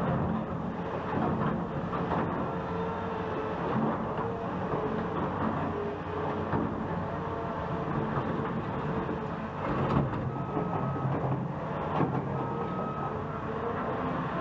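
Heavy diesel construction machinery running steadily with a low rumble and scattered clanks and knocks. In the last few seconds a backup alarm starts beeping.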